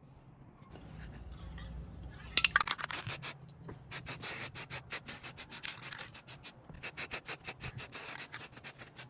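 Quick back-and-forth hand rubbing strokes, like sanding or filing on a part of an old pump, about five strokes a second. They start a couple of seconds in after a softer rubbing and pause briefly twice.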